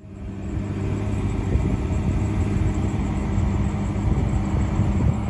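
Ram 1500 TRX's supercharged 6.2-litre Hemi V8 running steadily at a constant low pitch, fading in at the start.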